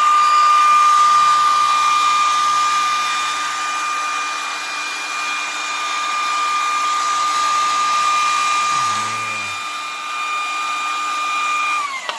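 Electric heat gun blowing with a steady high whine over a rush of air, warming the lip's 3M adhesive so it softens. Just before the end its pitch falls and it winds down as it is switched off.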